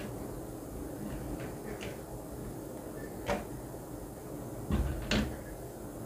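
A few light knocks, then two heavier thuds about five seconds in, from a hand handling a wheeled laptop table with a wood-laminate top and metal frame.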